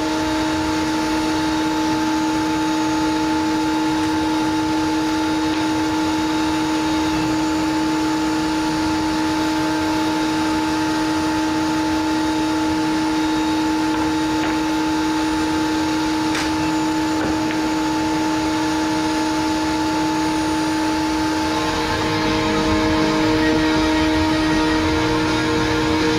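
Steady drone of the Laguna CNC router's running machinery, several held tones over a hiss, with a faint click about two-thirds of the way through.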